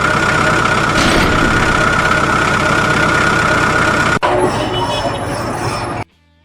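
Loud machine noise with a steady high whine. It cuts off abruptly about four seconds in, more loud noise follows, and that stops suddenly about six seconds in.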